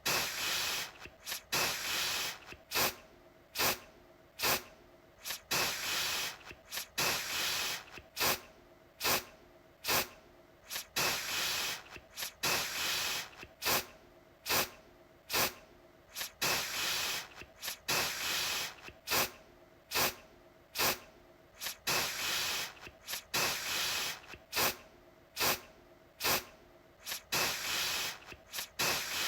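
Aerosol deodorant can sprayed in repeated short hissing bursts, about one or two a second, each beginning with a sharp click.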